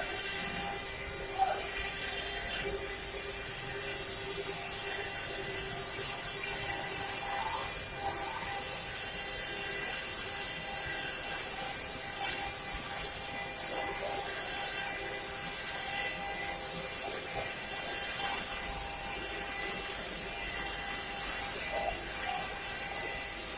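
CNC carving machine running steadily: a constant high spindle whine with steady mechanical tones beneath it.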